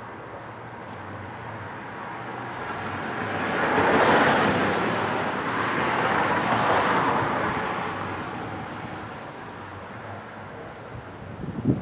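A vehicle passing by on a road: tyre and engine noise that swells to a peak about four seconds in, stays high to around seven seconds, then fades away. A short low thump comes near the end.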